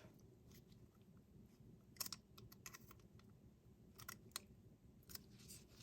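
Faint small clicks and scrapes of a CR2032 coin battery being worked out of its metal holder inside a garage door remote, a few scattered ticks with quiet between.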